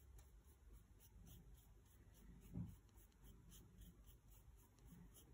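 Faint, quick, repeated strokes of a paintbrush dabbing paint onto sketchbook paper, with one soft low bump about halfway through.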